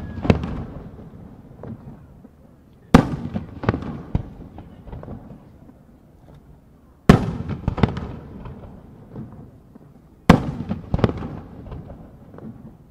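Aerial firework shells bursting, three loud booms about four seconds apart. Each is followed by a few smaller pops and a rumbling echo that dies away.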